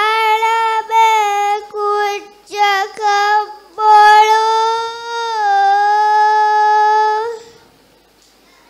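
A young girl singing raivaru, the Maldivian traditional chant, solo and unaccompanied, in long held notes with short breaks between phrases. She stops about seven seconds in.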